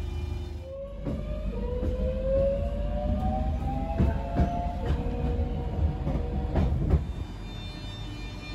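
Class 466 Networker electric multiple unit heard from inside the carriage, accelerating: its traction motors give a whine that rises steadily in pitch, over a rumble from the wheels. Several sharp clacks come as the wheels cross rail joints, the loudest a few seconds in and near the end.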